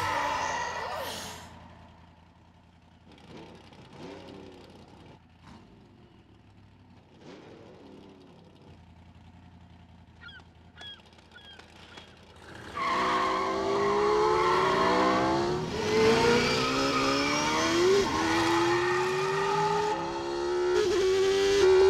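Open-wheel race car engines revving hard from about thirteen seconds in, their pitch rising and falling as they accelerate and shift. Before that the engine sound fades away in the first two seconds into a quiet stretch, with a few faint gull calls around ten seconds.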